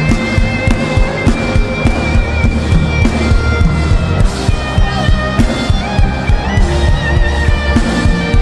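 Instrumental gospel worship music: a steady beat over a heavy bass, with a sustained, slightly wavering lead melody held above it.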